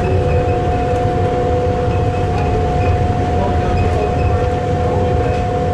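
Airport people-mover train riding its elevated guideway: a steady whine over a low rumble.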